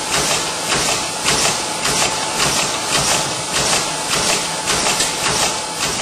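Flag-production machine running, a steady mechanical clatter with rhythmic hissing strokes about two to three a second over a faint steady whine.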